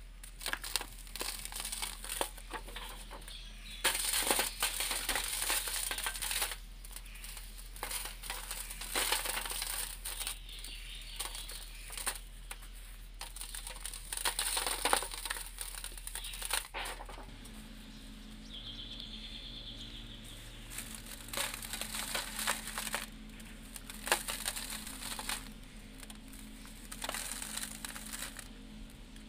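Hands crushing and crumbling lumps of dry sand-cement mix, the grit crunching and sifting through the fingers into a plastic tub. It comes in irregular bursts, with a quieter lull a little past the middle.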